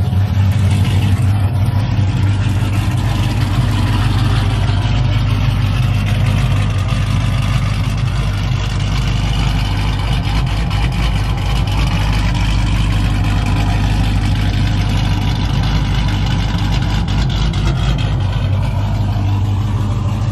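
Dodge Charger R/T's 5.7-litre HEMI V8, fitted with an aftermarket camshaft, idling steadily just after an oil change while the fresh oil circulates.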